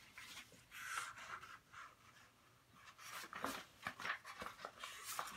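Pages of a thin paperback children's book being turned and handled: paper rustling with small clicks, in two spells.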